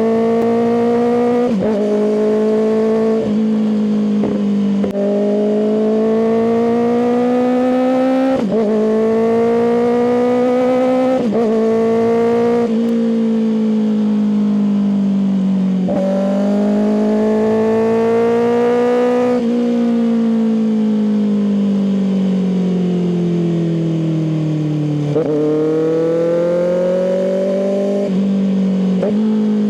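Kawasaki ZX-6R inline-four engine through an aftermarket M4 exhaust, ridden. The engine note climbs and drops sharply at each gear change several times, falls slowly for several seconds as the bike slows, then climbs again near the end.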